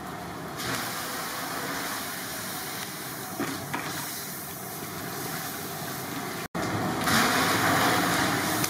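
Steady hiss of a large cooking pot steaming over a wood fire. After a brief dropout, from about seven seconds in, a louder rushing splash as a bucket of water is poured into the pot.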